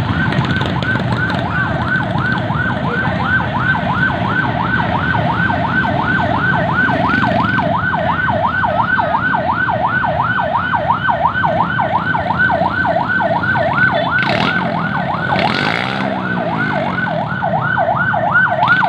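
Electronic siren yelping rapidly, its pitch sweeping up and down about two to three times a second, over the running of motorcycle engines. One engine revs up near the end.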